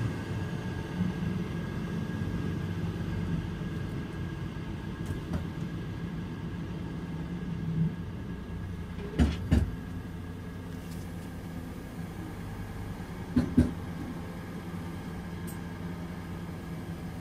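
Mercedes-Benz Citaro C2 LE Ü city bus idling steadily, its OM 936 turbocharged six-cylinder diesel giving a low, rough, rattly hum. About halfway through, and again some four seconds later, there come two pairs of sharp knocks.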